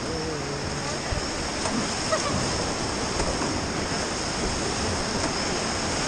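Whitewater rapids rushing steadily around an inflatable raft, with a faint voice briefly in the first second.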